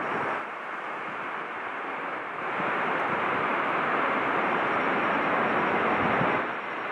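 Boeing 747's four jet engines running as the airliner rolls along the runway: a steady roar that swells about two and a half seconds in and drops back near the end.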